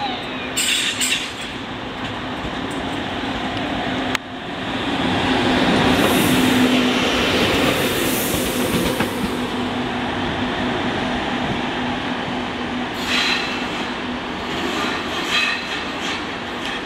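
ÖBB class 1116 Taurus electric locomotive running past at close range: a steady electric hum with rumbling wheels on the rails, loudest about five to nine seconds in as it goes by. Brief high-pitched wheel squeals come later.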